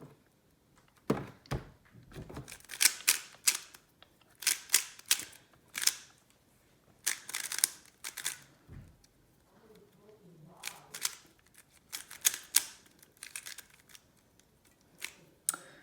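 MoYu RS3M 2020 3x3 speedcube being turned by hand: quick clusters of plastic clicks and clacks as the layers snap round, with short pauses between bursts.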